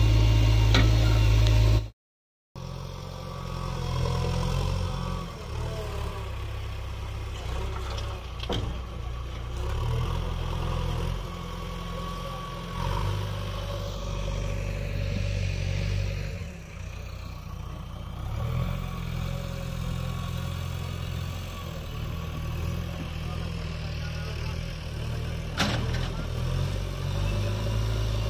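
Diesel engines of a JCB backhoe loader and farm tractors running steadily. The sound is loud for about the first two seconds, cuts out briefly, then carries on lower, with a couple of sharp knocks.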